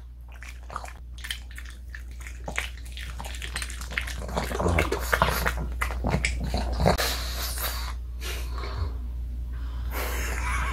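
Pug eating a homemade dog cookie fast, with quick irregular chewing clicks and crunches and noisy breathing through its nose.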